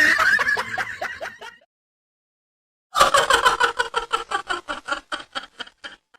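Laughter sound effects: a laugh trails off in quick 'ha' pulses and stops about a second and a half in, then after a short silence a second 'hahaha' laugh starts loud and winds down, its pulses getting quieter and further apart.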